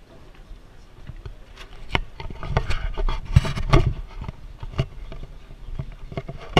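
Handling noise on an action camera's microphone as it rubs and bumps against a backpack and clothing while being carried through a crowd: a dense run of scrapes and knocks in the middle, then scattered ticks, over a low steady rumble.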